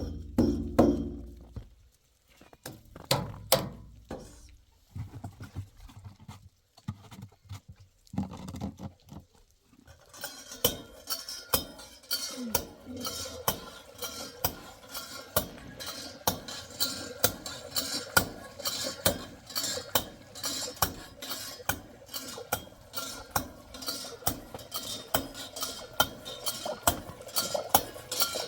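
Dishes and metal utensils clinking: scattered knocks at first, then from about ten seconds in a steady, rapid clinking of a utensil against a pot or dish.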